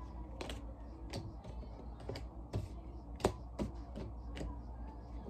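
Tarot cards being handled on a table, picked up and laid down: a string of irregular light taps and clicks, the sharpest about three seconds in.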